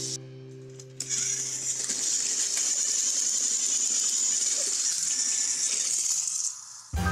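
Battery-powered toy trains running on plastic track: a steady, high whirring rattle of the small motors, gears and wheels, which cuts off suddenly near the end.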